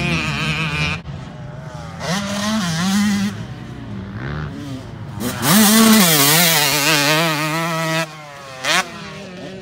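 Motocross dirt bike engines revving up and down as the bikes ride the track, in several short clips with abrupt cuts. The loudest stretch, a bike close by at high revs, comes a little past halfway and stops suddenly near the end.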